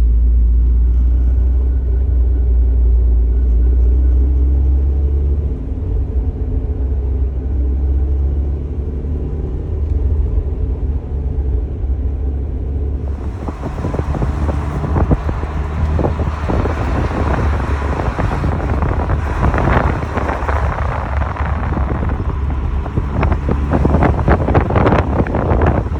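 Mazda Miata NA's 1.6-litre four-cylinder engine idling with a steady low hum. About halfway in, a loud crackling noise with many irregular sharp clicks comes in over it: the clicking, spark-like noise that the owner suspects is electrical.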